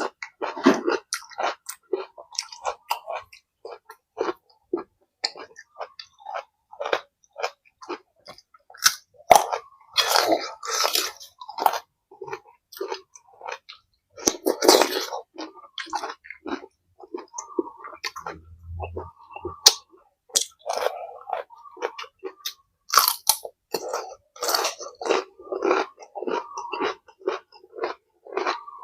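Close-up chewing and crunching of food, a mouth working steadily through bites with irregular wet and crisp sounds.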